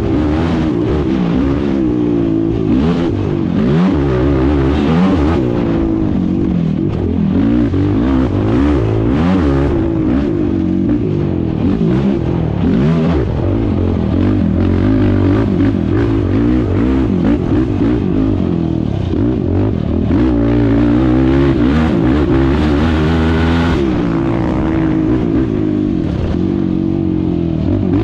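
Racing quad's (ATV's) engine revving hard under load, its pitch rising and falling over and over as the rider accelerates, backs off and shifts along a dirt track.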